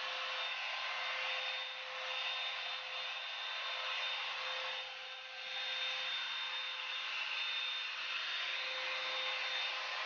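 Revlon One-Step hot-air dryer brush running on a steady setting: a constant rush of blown air with a thin motor whine, being drawn through a dry section of hair. The air noise dips briefly twice, about two and five seconds in.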